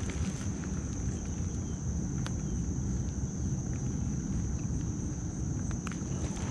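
A steady high-pitched insect drone, cricket-like, over a constant low rumble, with a couple of faint clicks.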